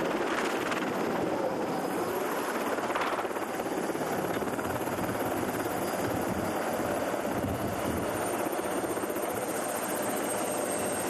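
Helicopter running steadily at close range, its rotor chop and engine making a dense, continuous noise.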